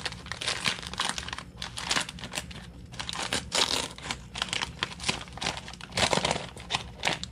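A bag of sugar being handled, opened and folded at the top, crinkling and crackling irregularly throughout.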